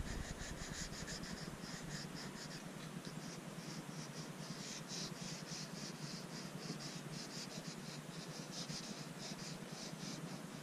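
Square pastel stick (Conte-style crayon) scratching across sketchbook paper in quick, repeated strokes, several a second.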